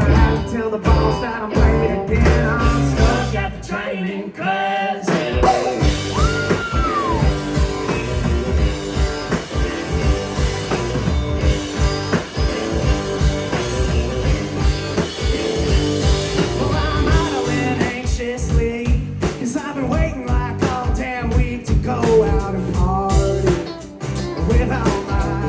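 Band playing a rock-and-roll style song, a lead singer over electric guitar and drums.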